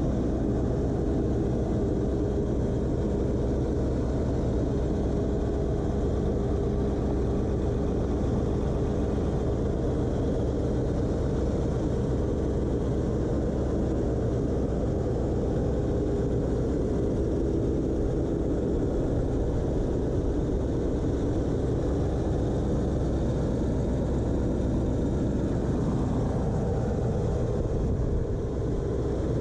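The V8 engine of a 1973 Mercedes-Benz 300SEL 4.5 idling steadily, heard from over the open engine bay.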